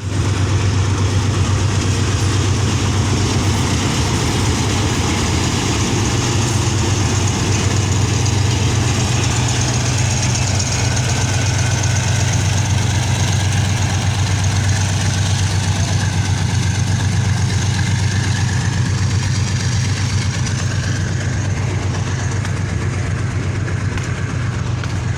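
Rail vehicle's engine running steadily with a deep, even hum.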